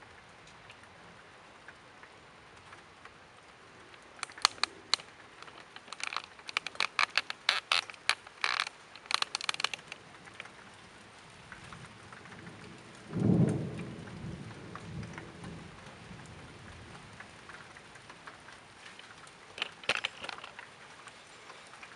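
Thunderstorm: a steady hiss of rain, with runs of sharp ticks of close drops. About halfway through comes one low rumble of thunder that starts suddenly and fades over a couple of seconds.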